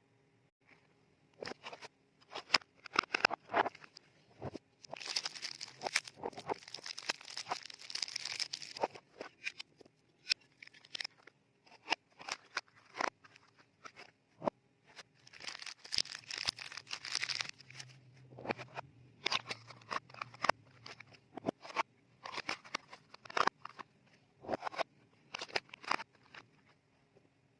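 Soap bars being packed back into frosted paper wrappers: sharp fingernail taps and clicks on the soap and packaging, with two longer spells of paper wrapper crinkling and rustling.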